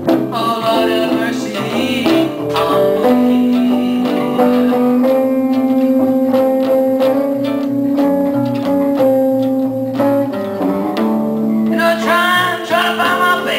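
Live blues band playing a slow blues passage on guitars, with no words sung. A long sustained note holds through the middle, between busier melodic runs.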